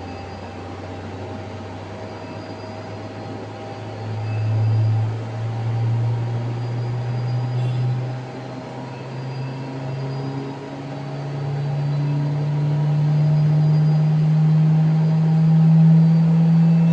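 Thermo Scientific Heraeus Multifuge X3R centrifuge spinning up under test: a steady motor hum that rises slowly in pitch and grows louder as the rotor accelerates.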